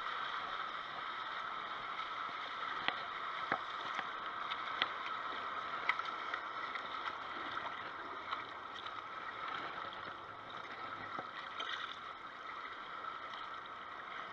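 River water washing and lapping steadily against a rocky, pebbly bank, with scattered sharp clicks and taps over it.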